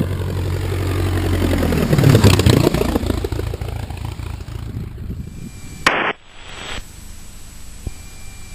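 Cirrus SR22T's turbocharged six-cylinder piston engine running with a steady low hum, swelling to its loudest about two seconds in and fading out by about five seconds. A sharp click comes near six seconds, followed by quieter cabin noise.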